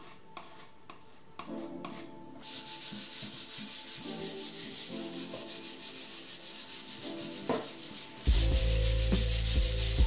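Soft background music, then from about two seconds in, hand sanding of a wooden board with a sanding block in rapid back-and-forth strokes, scuffing the surface before painting. Near the end the sanding becomes much louder and closer.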